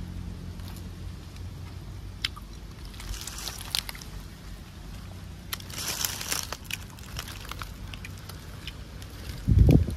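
Faint crackling and crunching as the charred skin is picked off grilled fish by hand, with a short low thump near the end.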